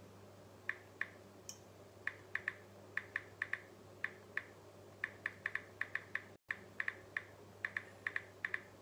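Clicks of a smartphone keyboard as thumbs type on the phone: about two dozen short, sharp ticks in quick irregular runs, over a low steady hum. The sound drops out for a split second a little after six seconds in.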